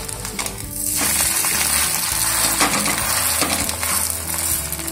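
Semolina cheela sizzling in oil on a hot tawa, turned with a steel spatula. The sizzle gets suddenly louder about a second in as the uncooked side lands on the hot oiled griddle, then holds steady.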